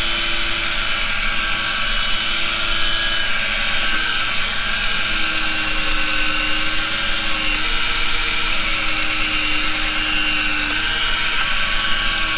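Electric deep-drop reel's motor winding line up under load: a steady whine whose pitch shifts slightly a few times as it works.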